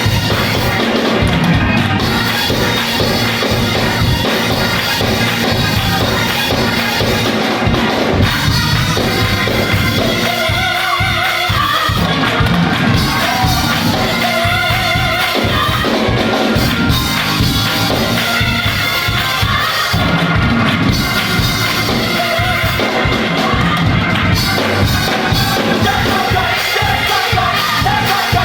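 Gospel choir singing with a full band accompanying, loud and continuous, the voices coming in more clearly after the first several seconds.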